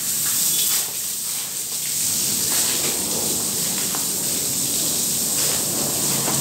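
Water jetting from a garden hose and splashing onto a wet marble floor, a steady spray.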